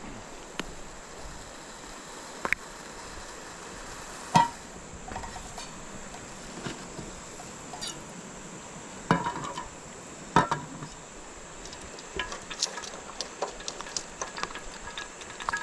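Camp cookware and utensils clinking and knocking over a steady hiss. There is a sharp clink about four seconds in, two louder clatters around nine and ten seconds, and quicker light clinks in the last few seconds.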